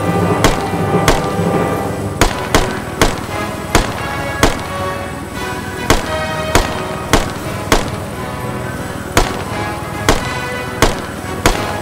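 Rifle shots fired in quick, irregularly spaced succession, roughly one to two a second, from a semi-automatic rifle shooting at hogs from a helicopter, with background music underneath.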